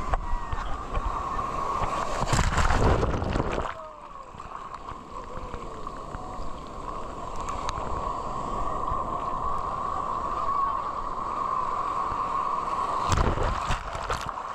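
Sea waves washing around a GoPro sealed in its waterproof housing, heard muffled. Two loud surges of water come about two seconds in and near the end, over a steady muffled hum.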